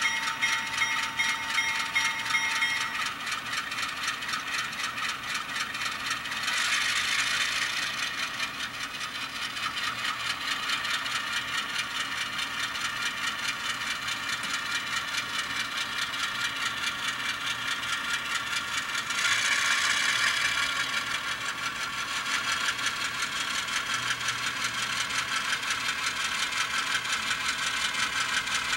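Alco RS3 diesel engine sound from an ESU LokSound Micro decoder, played through the N-scale model's tiny 8 x 12 mm speaker, running steadily as the locomotive moves. The engine sound swells louder twice, about seven seconds in and again about nineteen seconds in, then settles back.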